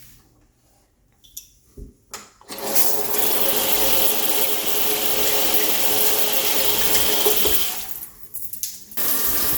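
Handheld shower head spraying water: a steady hiss that starts about two and a half seconds in after a few faint clicks, cuts out briefly near the end and comes back.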